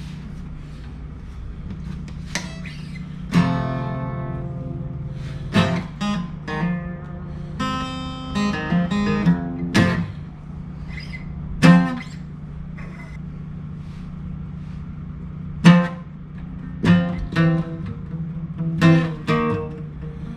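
Acoustic guitar music: strummed chords and single picked notes ringing out, over a steady low hum.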